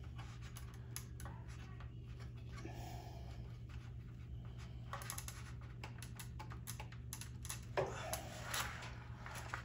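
Faint, irregular clicking and scratching from fingers and a small hand tool working the wire spade connectors off a freeze dryer's relay board, with a couple of louder clicks near the end. A steady low hum runs underneath.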